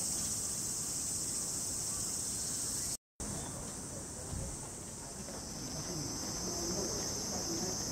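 Steady high-pitched drone of a chorus of cicadas, cut off for a moment at an edit about three seconds in.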